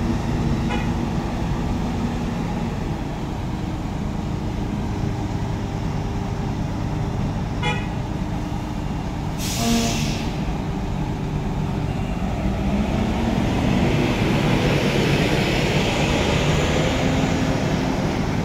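Heavy Isuzu container truck's diesel engine running at idle, with a short sharp hiss of air about halfway through as the air brakes release. The engine then revs up and grows louder as the truck pulls away under load.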